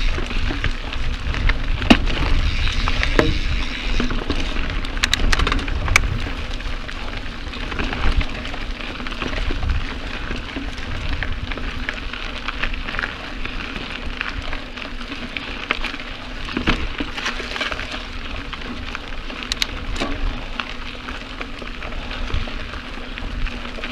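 Mountain bike tyres rolling fast over a dry dirt trail: a steady crackling hiss of grit and leaf litter under a low rumble, with scattered sharp clicks and knocks from stones and roots.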